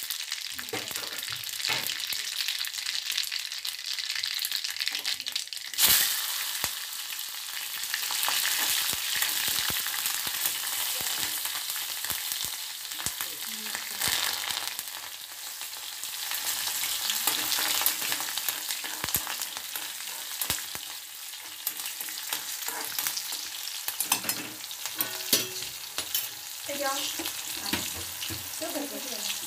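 Mustard seeds and green chillies frying in hot oil in an aluminium kadhai for a phodni (tempering), a steady sizzle with fine crackling. Just before six seconds in there is a sudden loud burst of sizzling as something is dropped into the oil.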